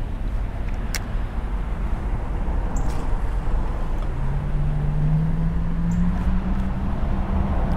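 Low, steady road-traffic rumble; about halfway through, a passing vehicle's engine hum comes in and rises slightly in pitch before dropping away near the end.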